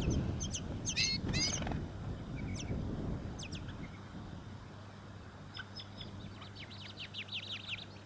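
Tawny-crowned honeyeaters at the nest: short, high, thin chirps, clustered about a second in while an adult feeds a gaping nestling, then a quick run of descending chirps near the end. Low wind rumble on the microphone fades out over the first few seconds.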